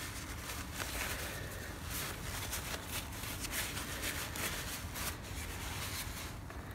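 Paper towel rustling and rubbing in quick scratchy strokes as a small oily brass safe-lock wheel is wiped clean by hand.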